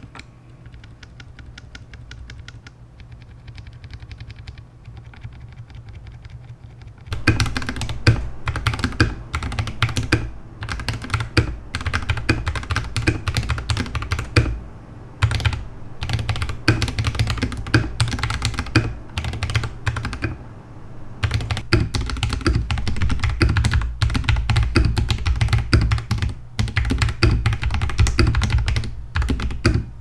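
Fast typing on a mechanical keyboard with Feker Holy Panda tactile switches, a dense run of key clacks, first stock and later lubed switches. The typing is faint for the first several seconds, then much louder from about seven seconds in, with a few brief pauses.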